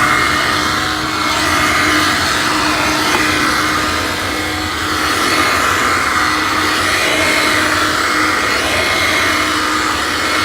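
Hoover Help Mate cordless hand vacuum running steadily with a motor whine, its pitch and loudness wavering slightly a few times.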